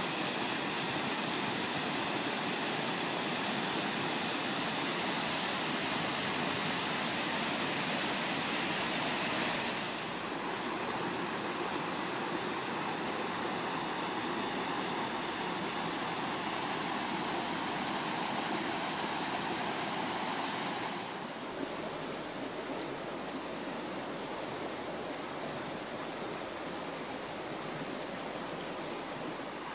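Water pouring down a waterfall over rocks, a steady rushing noise, giving way to a creek running over rocks. The rush drops abruptly about ten seconds in and again about two-thirds of the way through, each time to a quieter, smaller flow.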